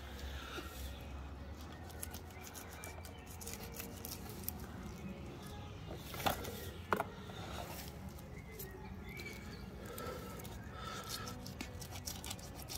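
Filleting knife cutting along the back of a large snapper, scraping and ticking through the big scales and flesh, with two sharper clicks a little past the middle.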